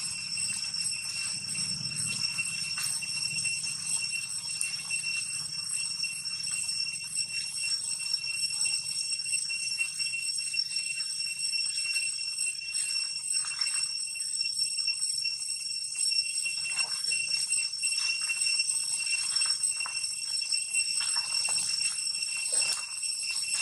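Steady high-pitched insect drone of cicadas. Young macaques wrestling give short falling squeals several times in the second half.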